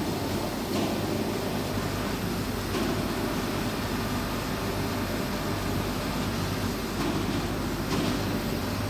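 TIG pipe-welding machine running during a root pass on stainless steel pipe: a steady electrical hum under a constant hiss.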